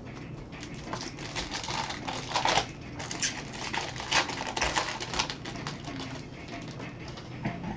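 Crinkling and tearing of a trading card pack's wrapper as it is ripped open and peeled off the cards: a quick, uneven run of crackles.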